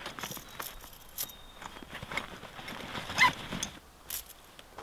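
Gear being handled at a nylon backpack: fabric rustling with irregular sharp clicks and knocks as paracord is pulled out and the pack is worked. The loudest clatter comes a little over three seconds in.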